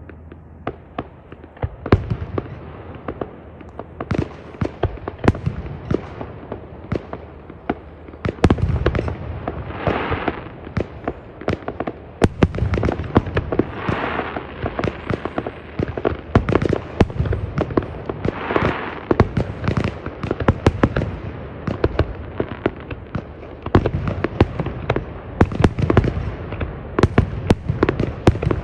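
Fireworks display: a rapid, continuous series of sharp bangs and booms, with three longer hissing stretches near the middle.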